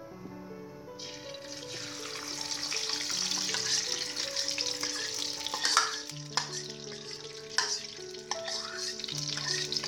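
Desi ghee sizzling as it melts in a hot aluminium kadhai, with a steel spoon clicking against the bowl and pan several times in the second half. A background music melody plays under it.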